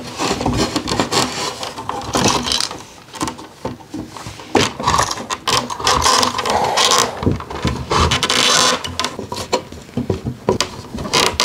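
Yellow sheathed electrical cable being pulled by hand through holes drilled in wooden studs, its plastic jacket scraping and rubbing against the wood and the back of the drywall, with frequent small knocks as it is tugged and shifted.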